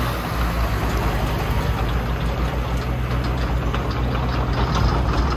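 New Holland T6050 tractor's diesel engine running steadily at low revs, an even low hum as it moves a loaded trailer along the lane.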